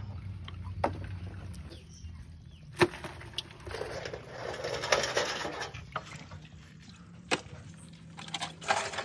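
Knocks and scraping from corrugated roofing sheets being handled in a shallow water tank. A sharp knock about three seconds in is the loudest. A rougher stretch of scraping follows in the middle, with a few more single knocks later.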